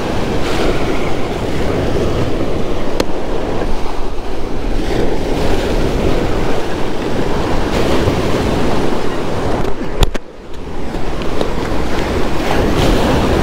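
Ocean surf breaking and washing over the granite boulders of a jetty, a continuous loud rush of water. About ten seconds in there is a sharp click and the sound briefly drops away.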